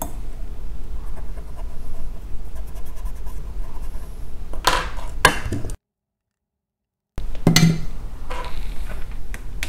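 Steady low hum with two short scraping clicks a little past the middle, then about a second and a half of dead silence where the audio cuts out, followed by one more click.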